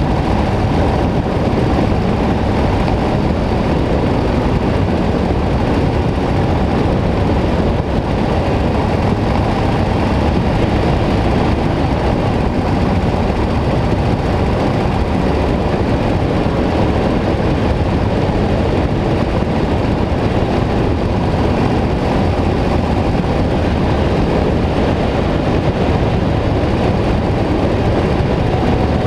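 Steady wind rush and road noise on a camera mounted low on a Harley-Davidson motorcycle cruising down the road, with the engine running underneath at a constant speed. No changes in pace or pitch.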